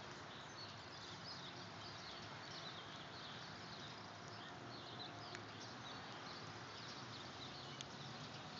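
Quiet outdoor ambience: a steady hiss with many faint, high chirps throughout and a couple of soft ticks.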